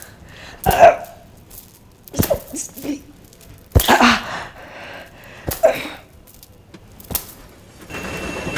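A woman sobbing in sharp, gasping breaths, about five of them spaced a second or so apart.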